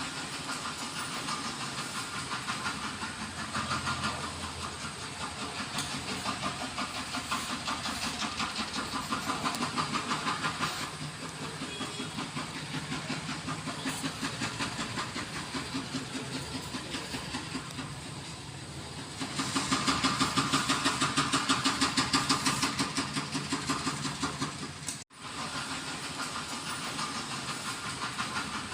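A man snoring in deep sleep: a rattling, fluttering snore that rises and falls with his breathing, louder for a few seconds past the middle, with a brief break near the end.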